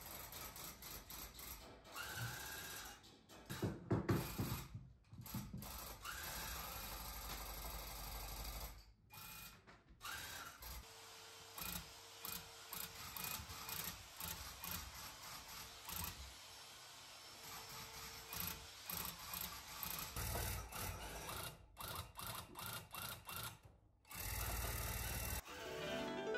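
Electric hand-held tufting gun running, a rapid mechanical chatter as its needle punches yarn into the backing cloth. It stops and starts several times, with a faint steady hum through the middle stretch.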